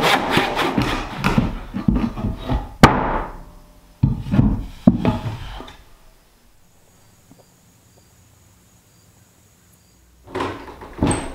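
Handsaw cutting through a wooden door-opening bottom plate in quick back-and-forth strokes, then a sharp crack and two heavy knocks as the cut-out piece is knocked loose with a hammer.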